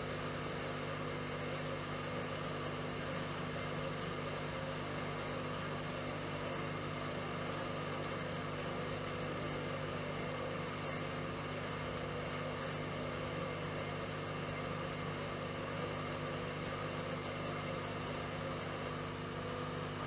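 Hoover Dynamic 1400 front-loading washing machine running, its motor and turning drum making a steady hum with no knocking.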